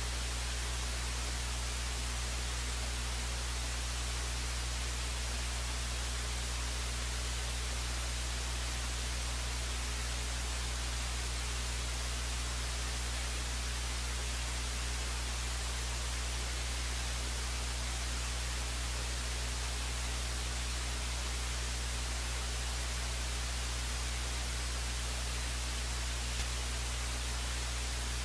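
Steady hiss of static with a low electrical hum, unchanging throughout: line noise from an audio feed carrying no program sound.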